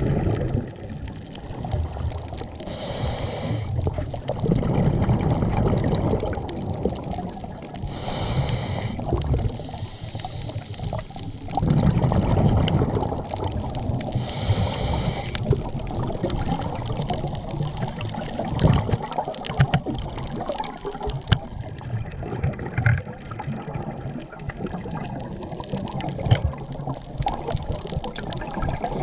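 Scuba diver breathing through a regulator underwater: a short hissing inhale three times in the first half, with rumbling, gurgling exhaled bubbles between.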